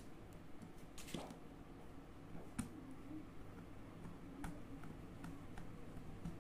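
Faint, scattered clicks and ticks of a screwdriver tightening a terminal screw and of fingers handling the wire on a reversible changeover switch's terminal block. The clicks come singly, a second or so apart, the strongest about two and a half seconds in.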